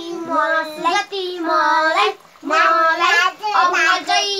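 A young child's voice singing a chanted rhyme in two sung phrases, with a brief break about halfway through.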